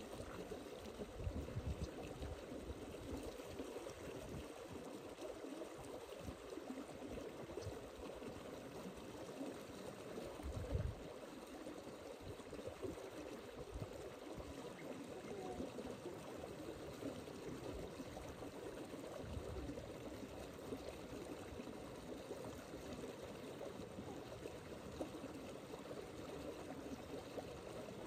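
Steady rush of running water, with a brief low thump about eleven seconds in.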